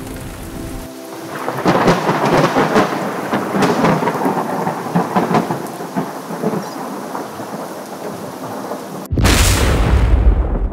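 Thunderstorm: heavy rain hissing with crackling thunder. About nine seconds in, a sudden loud, deep thunderclap breaks in.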